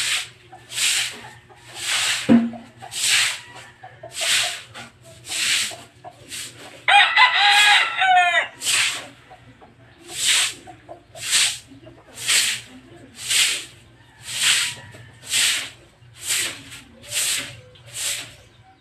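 Stiff broom swept over a wet concrete floor in regular scrubbing strokes, about one a second. A rooster crows once, about seven seconds in, and there is a single sharp knock about two seconds in.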